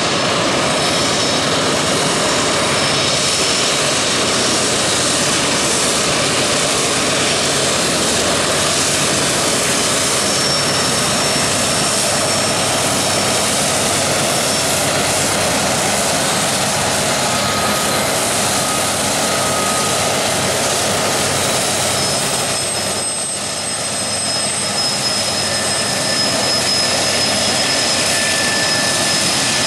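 A train passing close by, its diesel locomotives working hard up a grade: a loud, steady rumble and rolling noise, with thin high-pitched squeals coming and going. The noise eases briefly about two-thirds of the way through.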